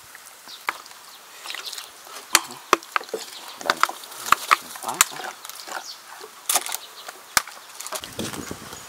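Metal spoon stirring a chilli and lime dressing in a wooden mortar, knocking against the sides in a string of sharp, irregular clicks.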